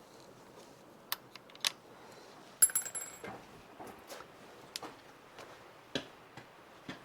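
Scattered mechanical clicks and knocks from handling the rifle at the shooting bench. About two and a half seconds in there is one sharp metallic clack that rings briefly at a high pitch, followed by a few more clicks.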